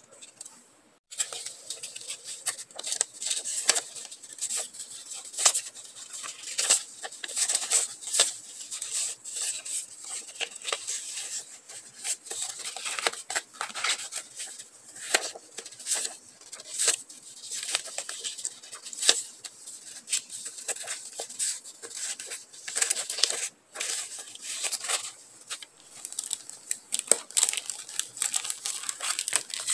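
Paper sticker sheets and journaling strips being handled and shuffled by hand: a dense, irregular rustling and flicking of paper. Near the end clear plastic sleeves of sticker packs crinkle as they are picked up, and it grows louder.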